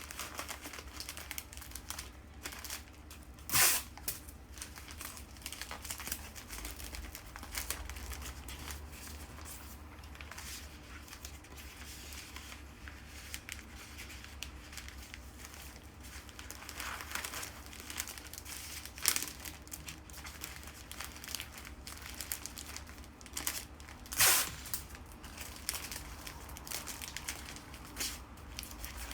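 Bouquet wrapping material, paper or plastic, being handled and crinkled, with three short, loud tearing sounds.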